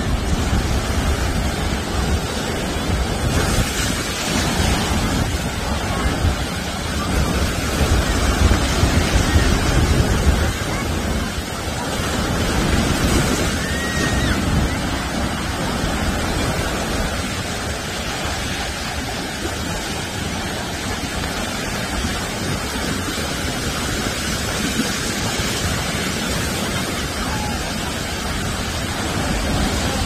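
Heavy swell surf breaking and washing up a sandy beach in a steady rush. Wind buffets the microphone, with a low rumble strongest over the first ten seconds or so.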